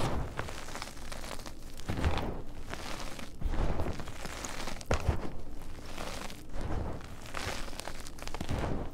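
Blocks of gym chalk crushed and crumbled in the hands: a series of soft crunches, one about every second or so.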